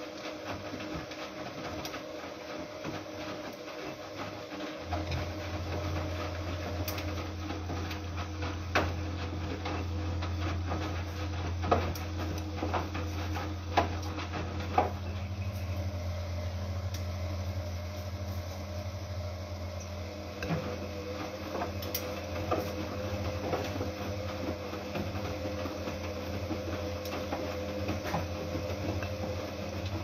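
Siemens Siwamat Plus 573 front-loading washing machine in its wash cycle, its drum turning wet, soapy laundry. A steady low hum sets in about five seconds in, and a few sharp clicks come between about nine and fifteen seconds.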